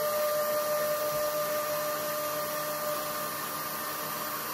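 CNC mill with a LaserTree diode laser module cutting EVA foam at 900 mm/min: a steady whirring hiss with a steady whine, the whine fading about three seconds in.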